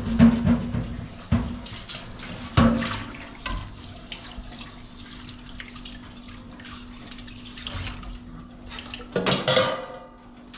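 Kitchen tap running into a stainless-steel sink while dishes are washed, with sharp clinks and knocks of crockery in the first few seconds and a louder clatter near the end. A steady low hum sits underneath.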